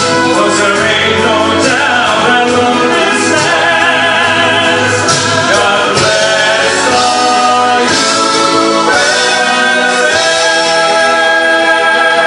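A man sings into a handheld microphone over musical accompaniment, amplified through the PA. About three-quarters of the way through, he holds a long note through to the end.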